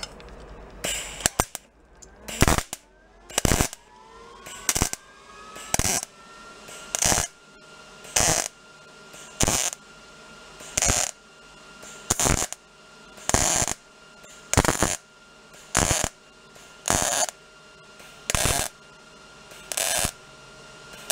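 MIG welder laying short stitch welds on a motorcycle's steel headlight bucket: about sixteen brief crackling arc bursts, roughly one a second, as material is built up to fill a torn-out area.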